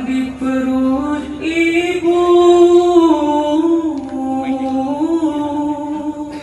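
A solo male voice sings a slow, ornamented dikir melody without accompaniment. He holds long notes and glides between them, rising about two seconds in and settling lower near the end.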